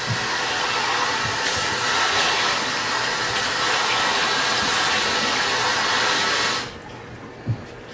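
Kitchen tap running steadily at the sink, shut off abruptly near the end.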